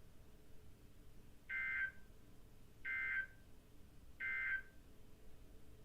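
Emergency Alert System SAME header: three short, identical buzzing bursts of digital data tones, about a second and a half apart, which mark the start of an emergency alert broadcast.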